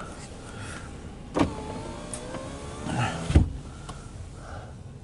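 A car's power window motor runs for about two seconds with a whine that falls in pitch. It starts with a click and ends in a heavy thump.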